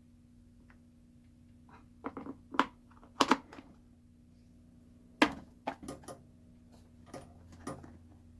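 Clicks and knocks of an electric chainsaw's parts being handled and adjusted by hand, in two clusters, the sharpest just over five seconds in, over a steady low hum.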